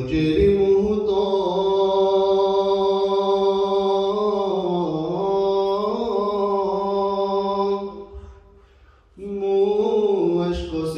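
A man singing an Urdu naat unaccompanied into a microphone: one long drawn-out line with the pitch slowly wavering, a pause for breath about eight seconds in, then the next line starting about a second later.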